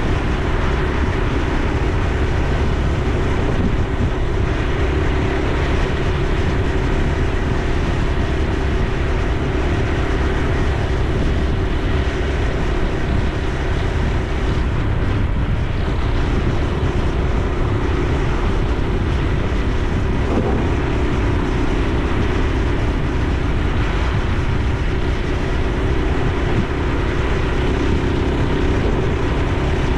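Honda Super Cub C125's 125 cc single-cylinder four-stroke engine running steadily while riding along, a constant loud drone with riding noise.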